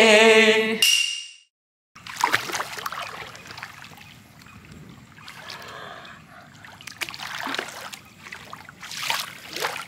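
A drawn-out voice cuts off about a second in; then swimming-pool water splashes and sloshes as a person wades in and moves through it, with louder splashes a few times.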